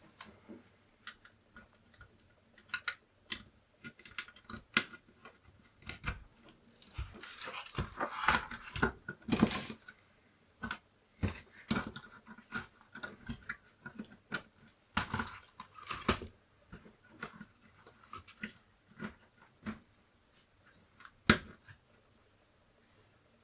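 Irregular clicks, taps and knocks from hands working on a Commodore 64 keyboard, with a denser stretch of rustling and knocking about seven to ten seconds in and one sharp knock about twenty-one seconds in.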